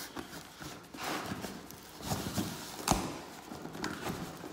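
Cardboard packaging scraping and rustling with several knocks as a boxed aluminium intercooler is shifted and tugged in its box; the loudest, sharpest knock comes about three seconds in.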